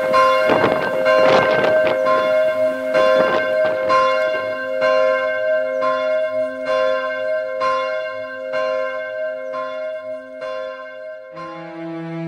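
Church bell tolling, about one stroke a second, each stroke ringing on and the strokes growing fainter. Near the end, low sustained musical notes begin.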